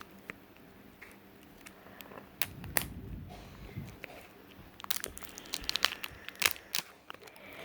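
Plastic blind-bag wrapper crinkling and tearing as it is pulled open along its tear strip: scattered sharp crackles, getting busier in the second half.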